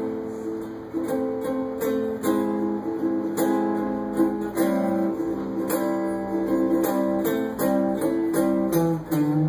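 Acoustic guitar playing a blues, picked notes and chords struck in a steady pulse.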